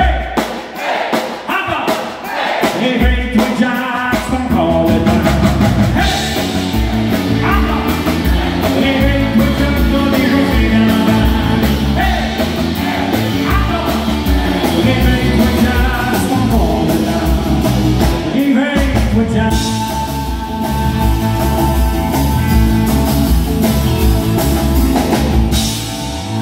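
Live country-rock band playing: acoustic and electric guitars, bass and drum kit, with a man singing. The music is sparse at first, and the full band with bass and drums comes in three or four seconds in.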